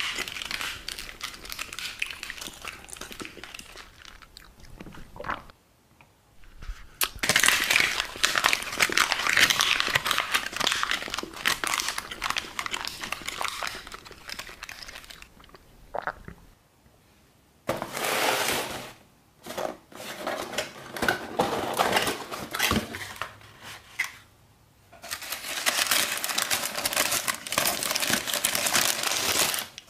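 Plastic film and paper wrapping crinkling and crunching as they are handled, in several bouts with short silences between. Near the end, white paper wrapping is crumpled as it is pulled open.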